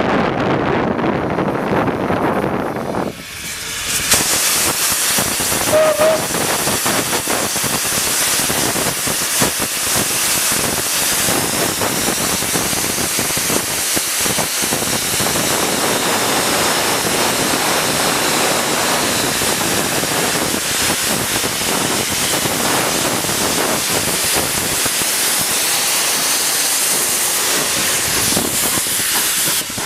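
Saddle tank steam locomotive close by, venting steam from its cylinder drain cocks in a loud, steady hiss that cuts in abruptly about three seconds in, after wind on the microphone.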